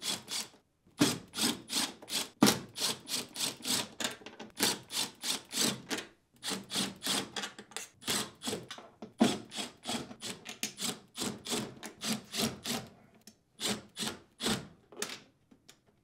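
Cordless driver with a T15 Torx bit backing out the screws of a stainless dishwasher inner door panel, in many short runs of two or three a second with brief pauses, stopping shortly before the end.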